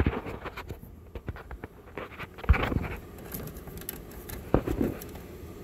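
Wires and hand tools being handled inside a dental X-ray film processor's plastic housing: scattered clicks, taps and scrapes, with a few sharper knocks, the loudest about two and a half seconds in.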